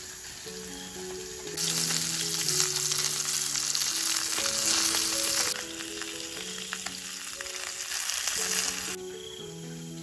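Food sizzling and crackling in hot oil in a pan. It starts loud about one and a half seconds in, eases somewhat midway, and cuts off near the end.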